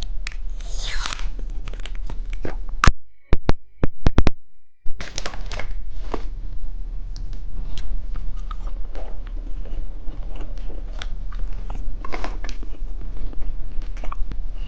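Candy wrapper being torn open and crinkled, crackling throughout, with a run of sharp clicks about three to four seconds in.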